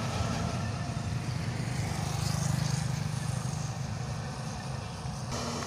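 Heavy diesel truck engines running as traffic passes close by on a hill, swelling to their loudest about two to three seconds in, with a sudden change in the sound near the end.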